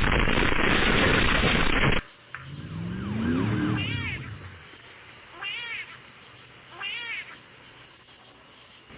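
A loud, harsh noise for about two seconds that cuts off abruptly. Then comes a meow-like call that rises and falls in pitch, followed by three short, identical high meow-like calls about a second and a half apart.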